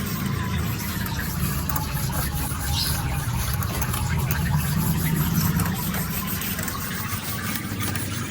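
A small motor-driven machine running steadily without a break, with a low hum and a hiss on top.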